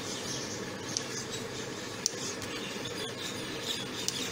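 Kitchen knife cutting through a soft potato-dough log on a marble slab, the blade clicking against the stone with each cut, about one click a second, over a steady background hiss.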